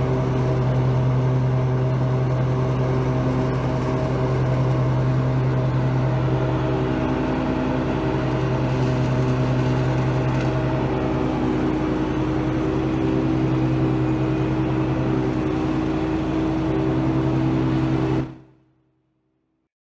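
Ferris IS600Z zero-turn mower running steadily at working speed while collecting leaves with its Turbo Pro bagging system engaged. The engine hum stays even, then fades out quickly near the end.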